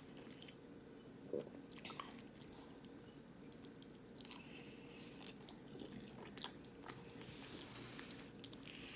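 Faint close-up chewing and biting of crunchy double-battered vegan jackfruit nuggets, with scattered small crunches.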